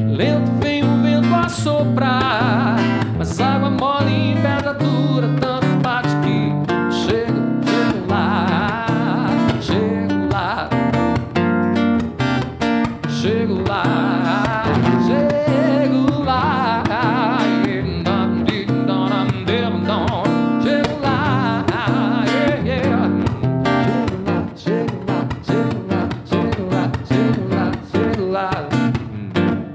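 Electro-acoustic guitar played in a steady strummed rhythm while a man sings over it; in the last few seconds the guitar carries on with fewer and shorter gaps of voice.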